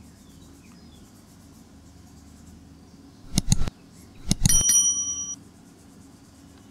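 Subscribe-button sound effect: two quick mouse clicks about three and a half seconds in, then another click and a short bright bell ding that rings for about a second.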